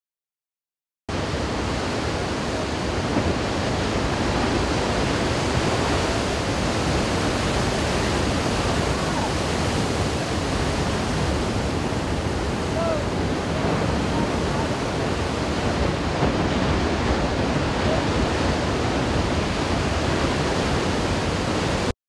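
Steady roar of heavy ocean surf mixed with wind noise on the camera microphone, starting abruptly about a second in.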